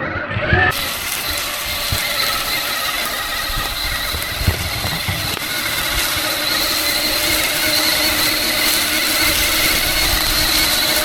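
Electric RC off-road car's motor and gear drive whining steadily in several tones, with a few low knocks from the chassis.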